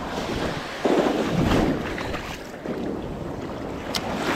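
Small surf waves breaking and washing up the sand in the shore break, with wind buffeting the microphone. A louder surge of wash comes about a second in, and a single sharp click sounds near the end.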